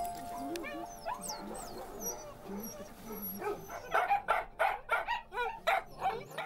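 Dogs whining and yelping, then from about four seconds in a quick, regular run of barks, about three a second.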